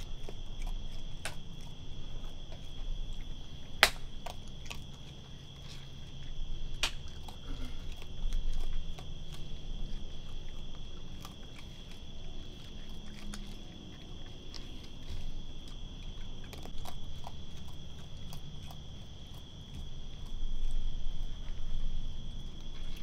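Raccoon crunching dry pet-food kibble, with scattered sharp clicks, one loudest about four seconds in, over a steady high chorus of night insects.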